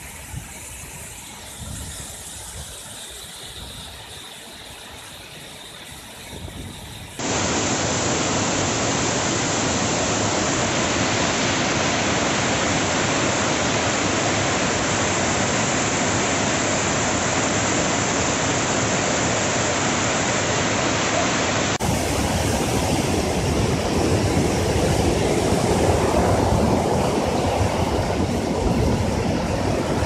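Chelavara Falls, a large waterfall, giving a steady rush of falling water, an even hiss with no separate events. The rush is softer for the first several seconds, jumps abruptly louder about seven seconds in, and changes again a little past twenty seconds.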